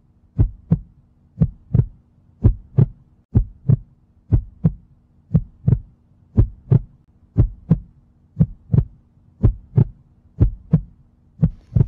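Heartbeat: slow, regular lub-dub double thumps, about one beat a second, over a faint steady low hum.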